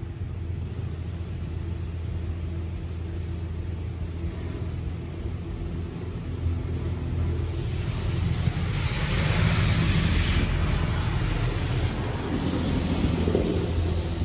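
WashWorld Razor touchless in-bay car wash heard from inside the car: a steady low hum of the wash machinery. About eight seconds in, a spray of water hisses across the car for two or three seconds, then drops away.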